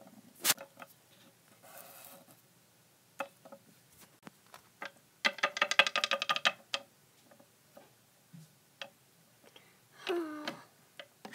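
Plastic toy figures handled on a tabletop: scattered clicks and taps, one sharp click about half a second in, and a dense run of rapid ticking for about a second and a half midway. A brief pitched, voice-like sound comes near the end.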